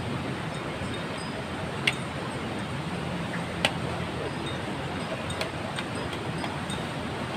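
Steady outdoor wind-and-open-air noise with a handful of sharp metallic clinks, the loudest about two seconds in and again halfway through, and faint distant voices.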